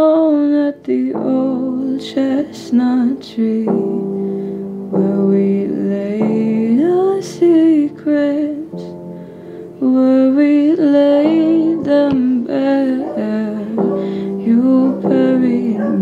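A woman singing an improvised melody of her own, her voice gliding and wavering in pitch, over a soft instrumental accompaniment of held chords that change every second or two.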